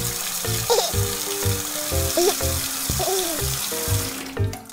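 Shower water running, a steady hiss over cheerful background music with an even beat; the water sound cuts off near the end, leaving only the music.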